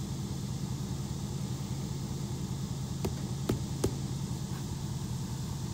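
An engine idling steadily, a low even hum, with three short sharp clicks about three to four seconds in.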